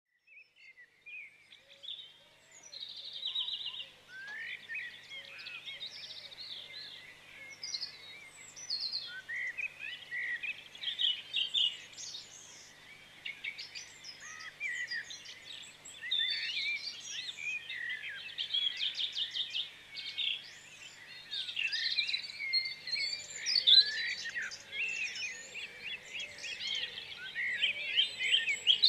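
A dense chorus of many songbirds singing and calling at once, a tangle of chirps, trills and whistles. It starts faint and fills out within the first few seconds.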